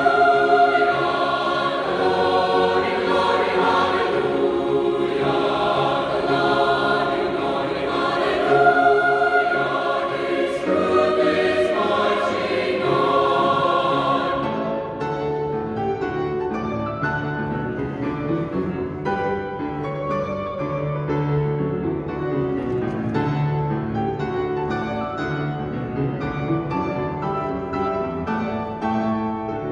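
Mixed men's and women's choir singing a hymn with piano accompaniment. About halfway through, the voices stop and the piano plays on alone.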